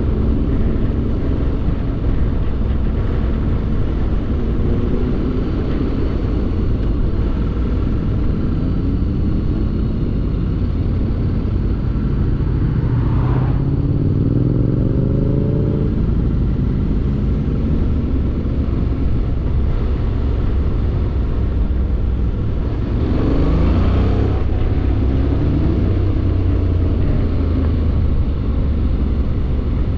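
A motorcycle is on the move, with a steady heavy rumble of wind and road noise. The engine note climbs in pitch under acceleration about halfway through, then drops suddenly. It climbs again about three-quarters of the way through before falling away.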